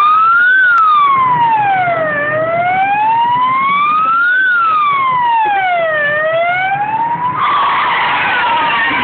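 Vehicle siren in wail mode, its pitch rising and falling slowly, about one full cycle every four seconds. About seven seconds in, a loud rushing noise takes over and the siren carries on faintly beneath it.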